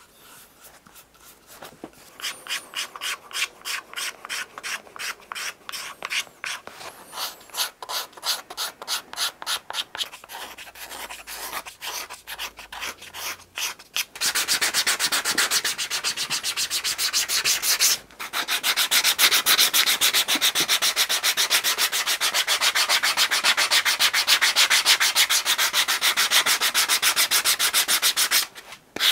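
Hand sanding of a leather-stacked shoe heel's edge and rubber top lift with a sanding block, in repeated scraping strokes, squaring the heel edge. The strokes come spaced at first, then turn faster and louder about halfway through, with a short break shortly after.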